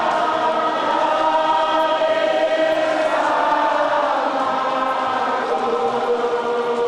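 A large crowd singing together in slow, long-held notes, a song of mourning.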